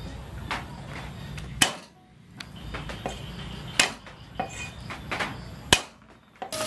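Cleaver chopping garlic on a round wooden chopping block: a few irregular sharp knocks, three loud ones and several lighter taps.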